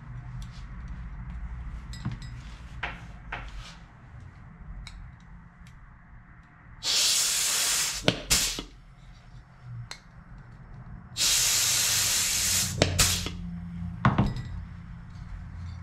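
Pneumatic rivet squeezer setting rivets in an aluminium bracket: two bursts of compressed-air hiss, each about a second long and a few seconds apart, each followed by sharp clicks of the tool and the part.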